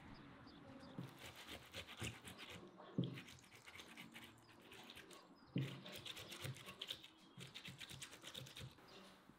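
Tomato being grated on a metal box grater into a ceramic plate: a quick, even run of wet rasping strokes, with two louder knocks a couple of seconds apart.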